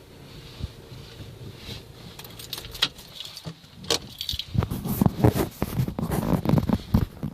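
Metal jingling and clattering with irregular knocks, sparse at first and growing busy and continuous about halfway through.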